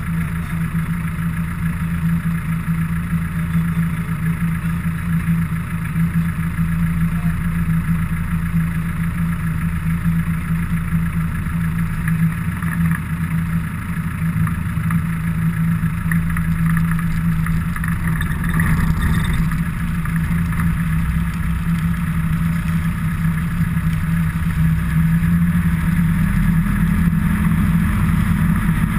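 A motor vehicle engine running at a steady low hum over road noise, rising slightly in pitch near the end. A brief higher hiss comes about two-thirds of the way through.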